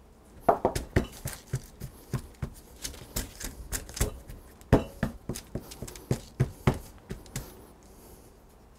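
Hands pressing and patting pie-crust dough flat on parchment paper on a wooden counter: irregular soft taps and paper rustles, a few a second, fading out near the end.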